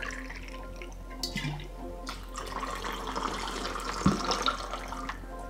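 Vodka poured from a jigger into a mixing glass of ice and pineapple juice, a steady trickle of liquid with a few glassy clinks, the sharpest about four seconds in.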